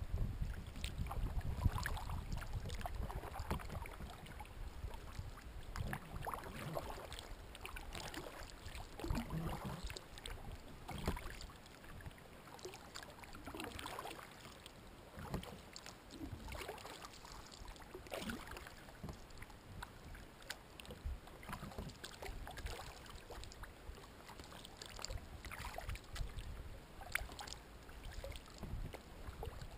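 Kayak paddle strokes on calm water: the blade dips and splashes every second or so, with drips between strokes. A low rumble sits under the first few seconds.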